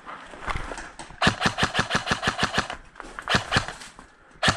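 Airsoft gun firing: a fast string of about ten shots at roughly seven a second, then two quick shots and one more single shot near the end.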